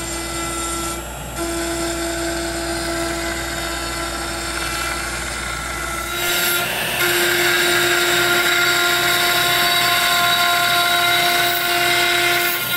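CNC router spindle running steadily with its bit surfacing a pecan slab: a steady whine from the spindle under the louder rushing noise of the bit cutting the wood. About six seconds in, the cutting gets louder.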